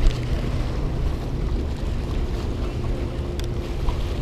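Wind buffeting the microphone with a steady low rumble, over small waves washing against a rocky shore. A faint steady hum joins about a second and a half in, and there is a light click near the end.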